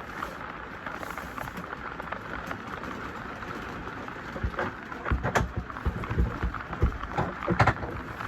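Irregular knocks and clunks in the second half, from handling the new porcelain RV toilet and setting it in place, over a steady hiss.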